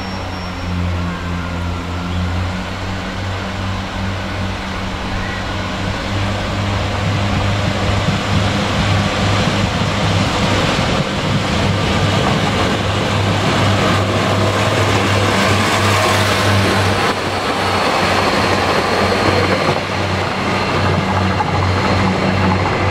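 Class 142 Pacer diesel multiple unit running under diesel power, its engine giving a steady low drone that grows louder as the train comes close, about a third of the way in.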